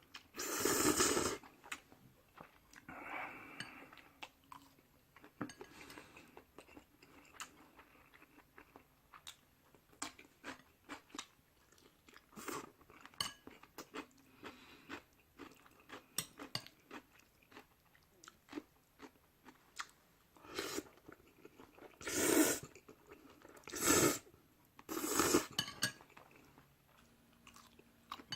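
Close-miked eating of stir-fried instant noodles: chewing with many small mouth clicks, and a few louder short noisy bursts near the start and again in the last few seconds.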